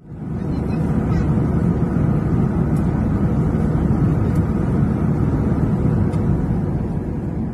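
Steady deep rumble of a jet airliner in flight heard from inside the cabin: engine and airflow noise, cutting in abruptly.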